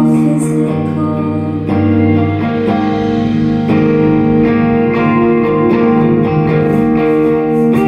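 Live rock band playing: electric guitars ringing out sustained chords over drums.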